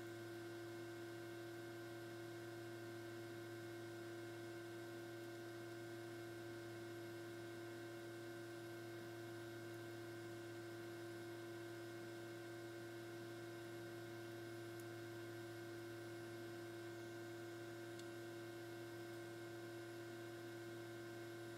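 Faint steady electrical-sounding hum made of several constant tones over low hiss: room tone. Two tiny clicks come in the second half.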